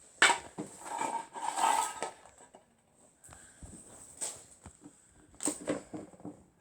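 Two metal fidget spinners being flicked into spin: a sharp click, then about two seconds of whirring. Scattered clicks and short rustles of handling follow.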